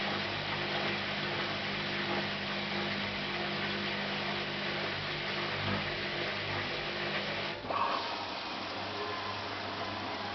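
Hotpoint NSWM 843C washing machine's inverter motor turning the drum with a steady hum and the rush of the wash. About three-quarters of the way through it cuts off suddenly with a click and a brief high tone, leaving only a faint hiss as the drum stops.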